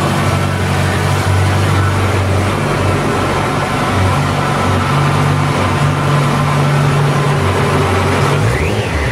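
Yamaha FZ1 Fazer's inline-four engine idling steadily, with a quick blip of the throttle, rising and falling, near the end.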